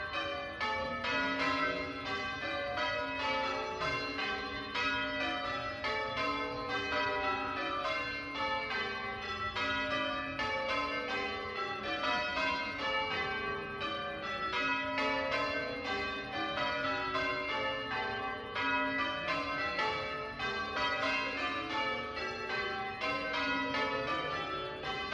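Church tower bells being rung in changes by a band of bell ringers: an even, unbroken run of strikes, each bell ringing on into the next.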